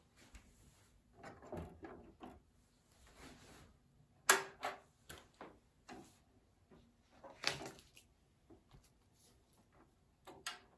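Irregular clicks and knocks with short patches of rustling noise; the sharpest knocks come about four seconds in and again about seven and a half seconds in.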